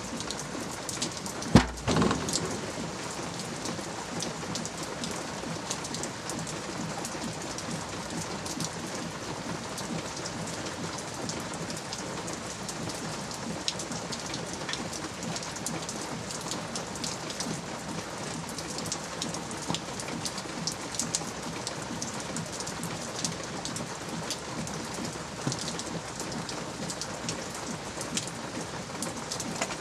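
Ceramic dome lid of a Big Green Egg charcoal cooker shutting with one heavy thud about a second and a half in. Then steady light rain, with many small drips ticking.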